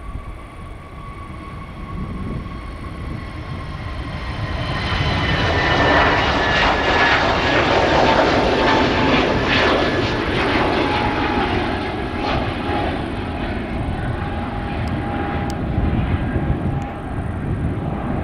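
Airbus A320neo's turbofan engines at take-off thrust: a roar with a high whine that builds as the jet rolls and lifts off. It is loudest about six to ten seconds in, with the whine tones sliding slightly lower as it passes, then eases a little as the jet climbs away.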